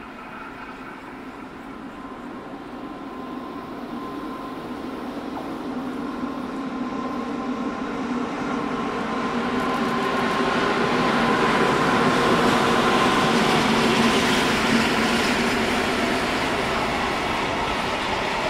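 Container freight train hauled by two electric locomotives approaching and passing: the rumble of motors and wheels on rail grows steadily louder, with a steady hum, peaks about twelve to fourteen seconds in as the locomotives go by, then carries on as the container wagons roll past.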